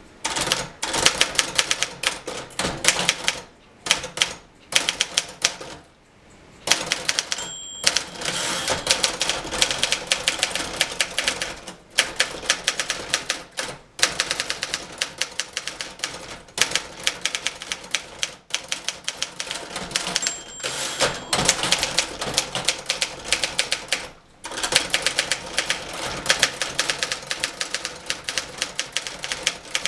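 1958 Remington Letter-Riter portable typewriter being touch-typed: fast runs of key strikes broken by short pauses every few seconds. A brief ring sounds twice, about eight and twenty seconds in.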